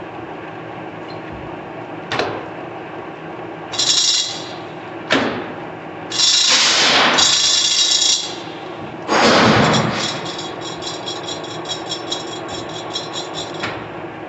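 A large 1966 Poreba TR-70B engine lathe running with a steady hum while its carriage and feed controls are worked. Several metal clunks and loud rattles come through, the longest about two seconds. Then a fast, even clicking runs until it stops just before the end.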